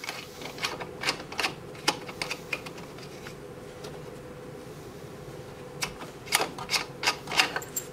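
Small sharp clicks and scrapes of a metal, old microphone-style cable plug being fitted and screwed into a front-panel jack of a vacuum-tube sweep generator. A quick run of clicks comes at the start, then a pause, then another cluster of clicks near the end.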